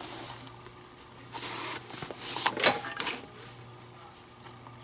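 Leather lace being drawn through the lacing holes of a Kubota Slugger infielder's glove during a web relace: two short rasping swishes, about a second and a half and two seconds in, with a few light clicks.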